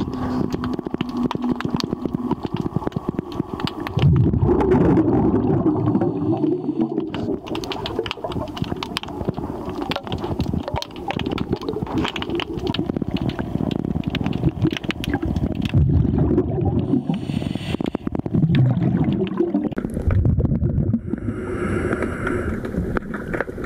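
Underwater sound picked up through a camera's waterproof housing: a constant crackle of sharp clicks over low, gurgling rumbles of moving water that swell several times.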